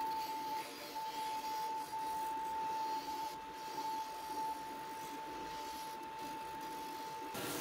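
Porter-Cable bench disc sander running with a steady whine while a wooden lure blank is held against the disc, with a sanding hiss. Shortly before the end the sound changes abruptly to a brighter hiss.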